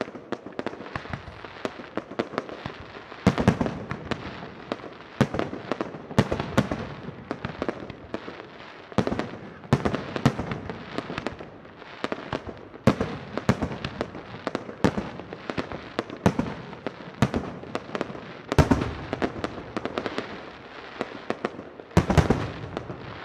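Fireworks display: aerial shells bursting in quick, irregular succession. Sharp bangs come every second or two over a dense rattle of smaller reports, starting abruptly, with one of the loudest bangs near the end.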